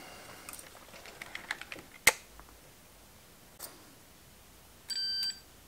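Small clicks of wire leads and metal clips being handled, with one sharp click about two seconds in. Near the end comes a short electronic beep, a multimeter's continuity beep.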